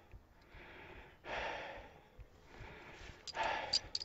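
A man breathing heavily, with two loud breaths about two seconds apart and a few small clicks near the end.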